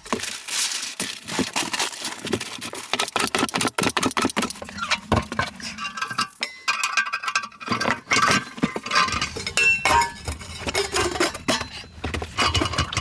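Rapid, irregular clinking and clattering of small hard objects, like cookware or utensils being handled, with a few short ringing tones partway through.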